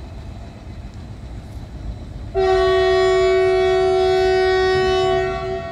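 Train running with a steady low rumble; about two seconds in, a locomotive horn sounds one long steady blast of several tones together, lasting about three seconds before it fades.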